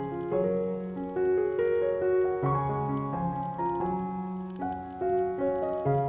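Slow background piano music, with sustained notes that overlap and change about every half second to a second.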